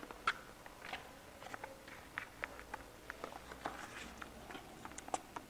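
Faint, irregular small clicks and taps, a few every second, over quiet room tone.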